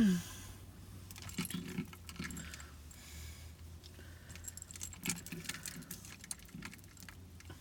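Small objects being handled, giving a scattering of light clicks and jangly rattles at irregular moments, over a faint steady low hum.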